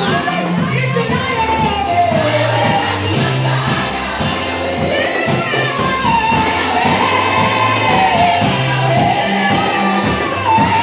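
Gospel music: a group of voices singing a melody over a band, with a bass line that moves every second or so and a steady drum beat.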